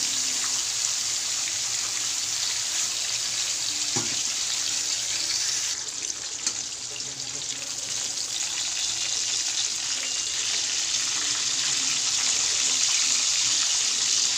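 Pork pieces sizzling in hot oil in a wok: a steady frying hiss, with one short click about four seconds in.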